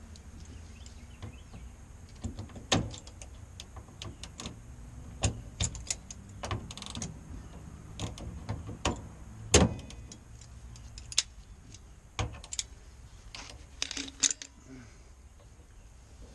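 Metal hand tools clinking and clattering at irregular intervals as they are picked up and sorted through, with a low steady hum underneath.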